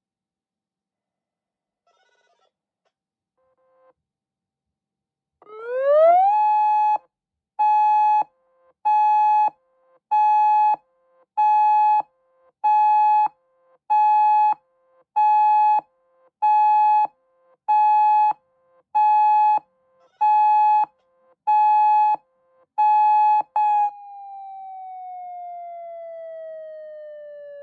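Federal Signal UltraVoice+ electronic siren tone on a single pitch. After about five seconds of near silence it rises quickly to a steady pitch, then pulses on and off about once a second. Near the end it slides slowly downward as it winds down.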